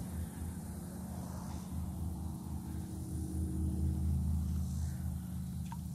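Steady low hum of a distant engine, unchanging in pitch, with a couple of faint ticks near the end.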